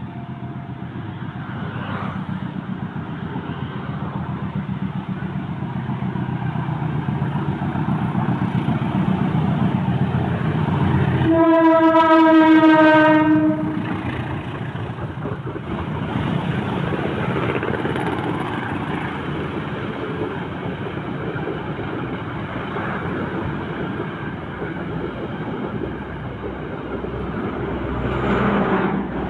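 A train approaching with a rumble that grows louder; about eleven seconds in the locomotive sounds one horn blast, a single note held about two seconds and dropping slightly in pitch. The train then rolls past with a steady rumble, swelling briefly near the end.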